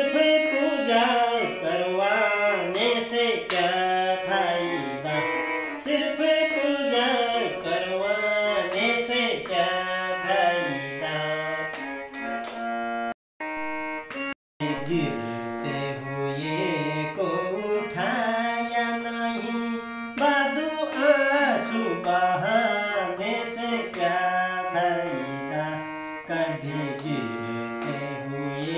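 Small portable electronic keyboard playing the instrumental interlude of a Hindi devotional song (bhajan): a moving melody over a steady held low note. The sound cuts out twice for a split second about halfway through.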